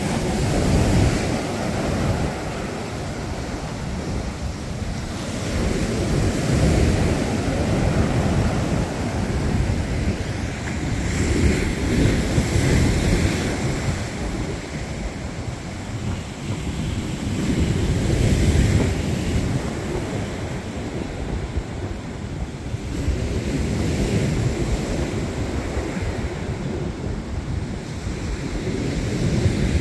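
Choppy sea surf breaking on the shore in waves that swell and fall every few seconds, with wind buffeting the microphone.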